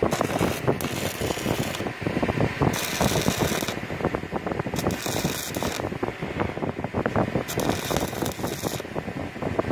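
Stick welding: the electrode's arc crackling and sputtering steadily against a steel plate, with a sharper hiss that comes and goes about four times.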